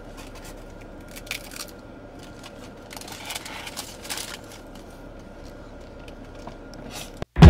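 Paper taco wrapper rustling and crinkling, with the crunch of a hard-shell taco being bitten and chewed, as scattered quiet crackles over a faint steady hum inside a car.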